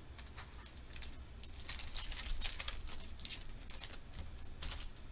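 Pokémon trading cards and a foil booster pack being handled: an irregular run of quick rustles, flicks and crinkles.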